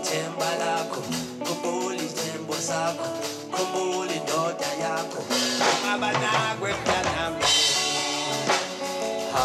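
Live band playing a song: electric bass guitar, drum kit and sung vocals, with a cymbal wash about three quarters of the way through.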